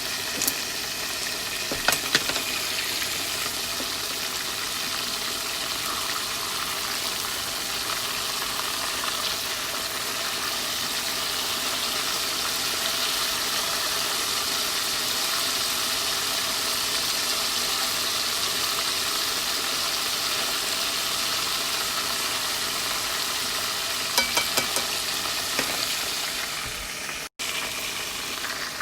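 Food sizzling steadily in a frying pan. A few sharp clicks come about two seconds in and again near the end, and the sound breaks off for an instant shortly before the end.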